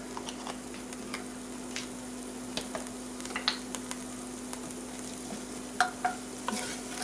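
Green onions, garlic and cilantro sizzling in a frying pan with a steady hiss as they are stirred, the utensil clicking and scraping against the pan every so often, more often near the end. A steady low hum runs underneath.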